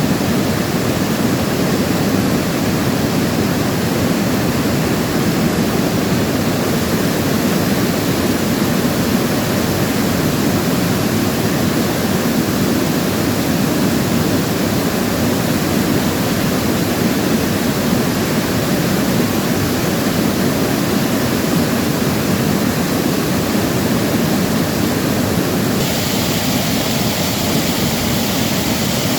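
Steady rush of a stream spilling over small falls into rock pools, an even, unbroken water noise; the hiss turns a little brighter near the end.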